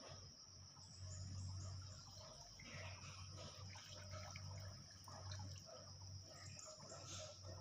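Faint water sounds, small splashes and drips, over a steady high-pitched whine and a low hum that comes and goes.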